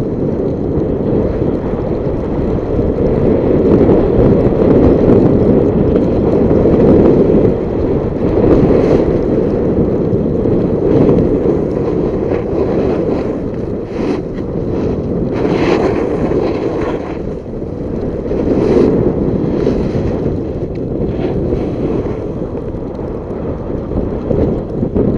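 Wind rushing over the microphone of a camera carried by a skier going downhill. Short hissing scrapes of skis on snow come and go, the longest about two-thirds of the way through.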